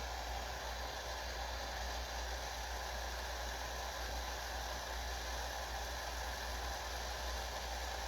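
Steady, even hiss with a low rumble underneath.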